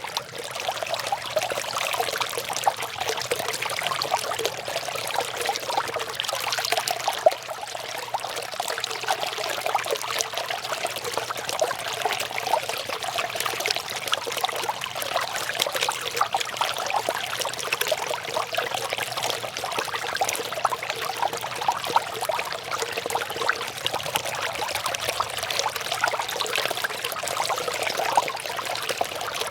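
Small waterfall about six inches high, water falling and splashing steadily with a dense patter of small splashes and little deep rumble.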